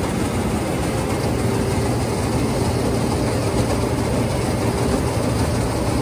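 John Deere combine harvester running at close range while unloading grass seed through its auger: a steady, loud mechanical drone of engine and machinery with a low hum.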